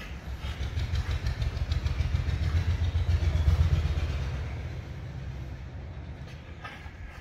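A low rumble that swells to a peak about three and a half seconds in, then fades away.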